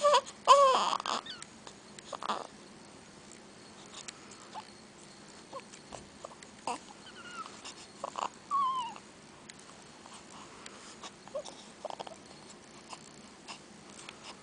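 Newborn baby fussing with short, high whimpers and squeals, loudest in the first second or so, then a few brief falling squeaks spread through the rest. It is the fussing of a hungry newborn rooting for milk.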